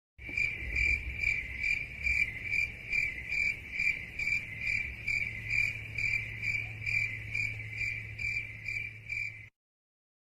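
Crickets chirping in a steady, even rhythm of about two and a half chirps a second, cutting off abruptly near the end. This is the stock 'crickets' sound effect used for an awkward silence.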